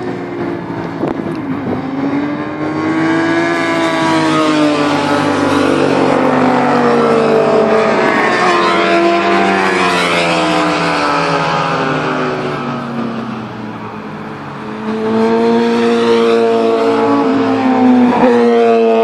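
Motorcycle engines revving hard through a bend, their pitch climbing and falling with throttle and gear changes, several engines overlapping. The sound dips about three-quarters of the way in, then another engine rises loud near the end.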